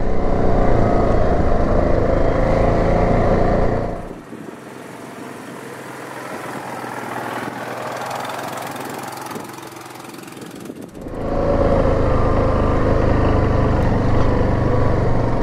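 Yamaha Grizzly 700 ATV's single-cylinder engine running steadily; about four seconds in it drops away to a quieter hiss for roughly seven seconds, then comes back.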